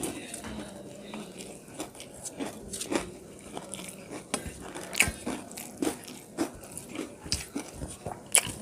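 Close-up eating sounds: a person chewing a mouthful of rice and fried fish, with irregular wet mouth clicks and light crunches several times a second and a few sharper smacks.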